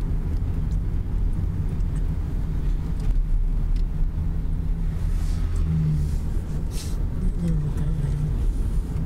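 Car heard from inside its cabin while being driven: a steady low rumble of engine and tyres.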